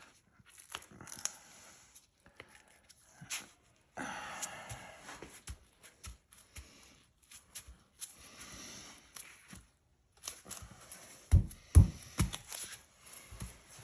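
Sheets of sandpaper, their backs tacky with spray adhesive, rustling and crinkling as they are lined up edge to edge and pressed down onto a glass plate, with scattered light clicks. A few low thumps come near the end.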